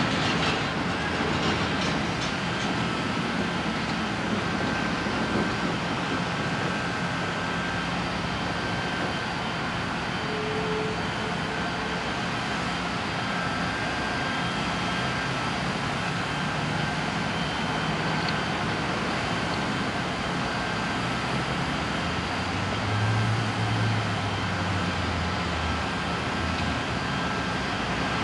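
Heavy diesel machinery running steadily: the John Deere 225D excavator working as it loads dirt into a Peterbilt triaxle dump truck. The engine note gets louder and higher for a few seconds near the end.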